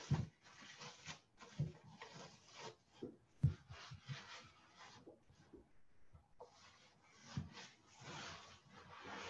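Plastic wrap rustling and crinkling in irregular patches as a ball of pie dough is unwrapped and handled, with a few soft thumps on the countertop.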